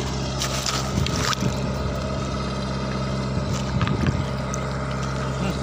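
Diesel engine of a dompeng gold-mining suction machine running steadily, with water splashing as a stone is dipped and rinsed by hand, about half a second in and again near four seconds.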